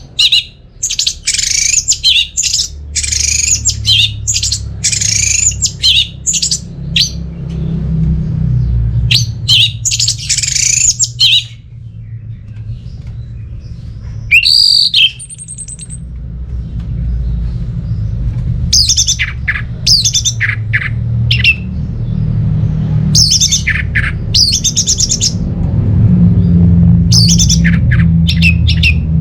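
Orange-headed thrush singing in runs of quick, high phrases with short pauses between them, over a steady low hum.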